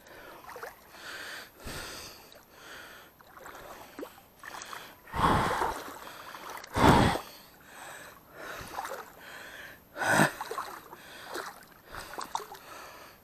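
A man breathing hard close to the microphone, a breathy rasp roughly once a second. Two louder, deeper bursts of noise come about five and seven seconds in.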